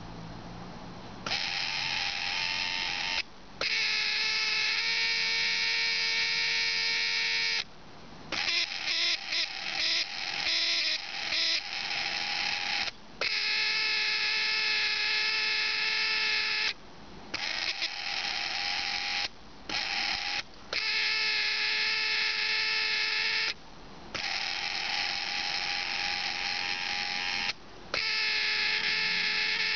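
Suzuki Cervo CN22S power window motor, out of the car, running in spells of a few seconds that are switched on and off, with a stretch of quick short bursts about a third of the way in. It runs with a squealing whine, an abnormal noise the motor has developed.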